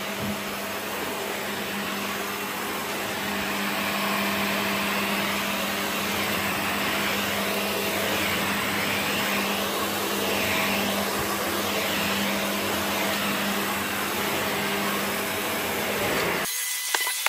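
Hoover HL4 upright vacuum cleaner running while its cleaner head is pushed back and forth over carpet: a steady motor hum under a rush of air that rises and falls in pitch with each stroke. The sound cuts off suddenly near the end.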